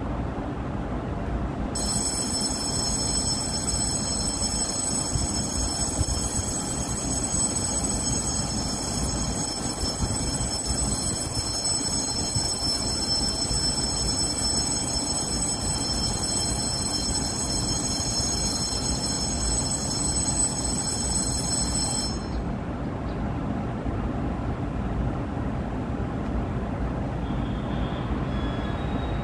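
EMU500-series electric commuter train standing at a platform, its equipment running with a steady low noise. About two seconds in, a high, steady ringing tone starts over it and cuts off suddenly some twenty seconds later.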